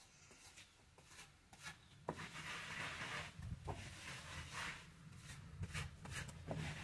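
Hand float and trowel rubbing and scraping over fresh cement plaster on a wall in irregular strokes, louder and more frequent from about two seconds in, with a low steady rumble underneath.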